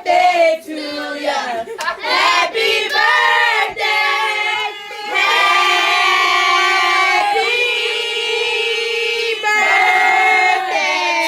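A high voice singing, holding long notes from about five seconds in to about nine and a half seconds in.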